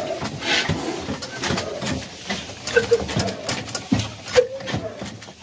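Old horizontal single-cylinder black-oil engine being started by hand-turning its flywheel, giving a slow run of knocks about two to three a second, with men's short shouts over it.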